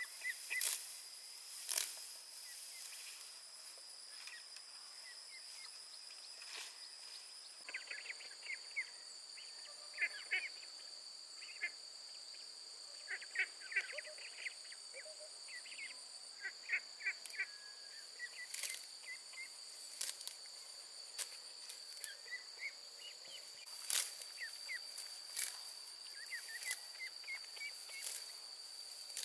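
Rural outdoor ambience: a steady high-pitched insect drone, with clusters of short chirping animal calls and scattered sharp clicks.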